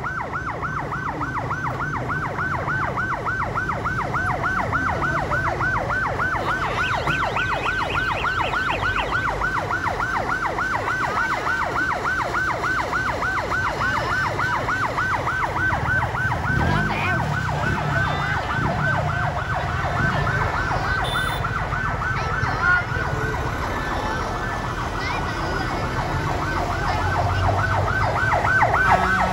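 Fire engine siren in a fast yelp, about four rising-and-falling sweeps a second, over the low rumble of idling engines. The siren weakens past the middle and comes back strongly near the end.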